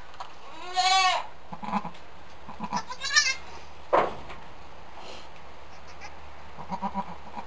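Goats bleating: a short arching bleat about a second in and a shorter, higher bleat about three seconds in, from a doe and her newborn twin kids. Soft low murmurs come between the bleats, and there is a sharp click about four seconds in.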